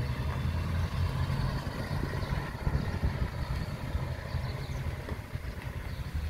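Ford Econoline E350 motorhome's engine running as the vehicle drives slowly away down the street, a steady low rumble that fades as it goes.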